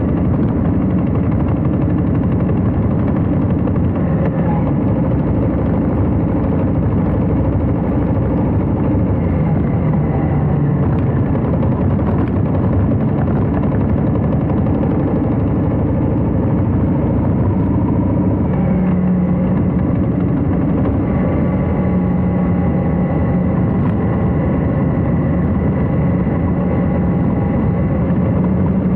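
Harley-Davidson Heritage Classic's V-twin engine running under way, its pitch dropping and rising a few times as the speed changes.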